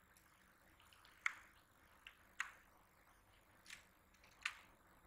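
About five short, sharp clicks, irregularly spaced, from a computer keyboard and mouse being worked, over faint room hiss.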